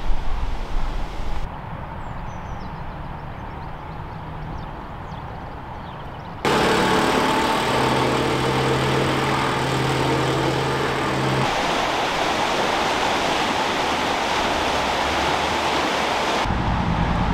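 Outdoor ambience in abrupt cut-together stretches: low wind rumble on the microphone, a quieter spell with a few faint high chirps, then from about six seconds in a much louder steady rushing noise with a low hum, ending in wind rumble again.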